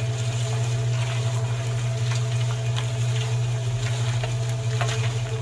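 Small DC toy motor running steadily, turning the tin-can drum of a homemade mini concrete mixer, with scattered light ticks.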